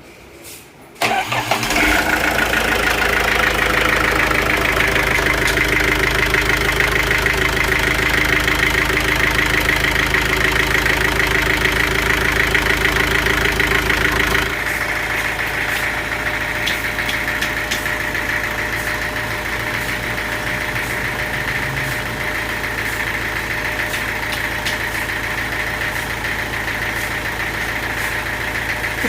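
An engine starts about a second in and runs steadily; about halfway through its sound shifts to a lighter, slightly different steady note.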